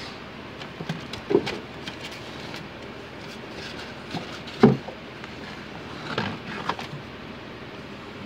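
Items being handled on a cabinet shelf: a few knocks, the loudest a little past halfway, and plastic packaging crinkling about two thirds of the way in.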